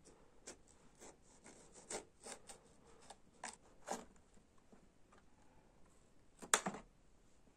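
Small knife cutting green bell peppers on a metal tray: a dozen or so short cuts at uneven intervals, the loudest near the end.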